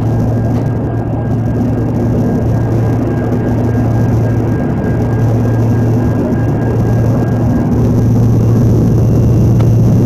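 Jet airliner cabin in flight: a loud, steady drone of engine and airflow noise with a deep hum.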